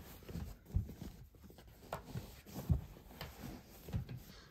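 Folded denim jeans rustling as a hand pushes and presses them down into a wooden dresser drawer, with a few soft, irregular thuds.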